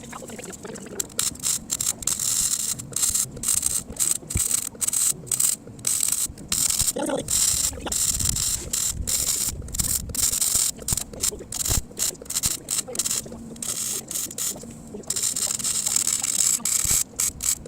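MIG welder arc crackling in short stop-start bursts while patching a pinhole in a rusty steel exhaust pipe, with a longer unbroken run of crackle near the end.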